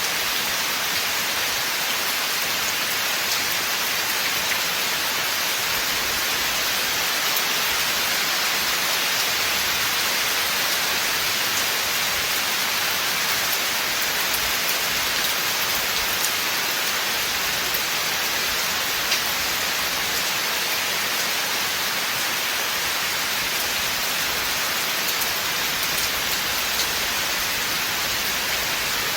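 Steady rain falling on a forest, a dense, even hiss with faint scattered drop ticks.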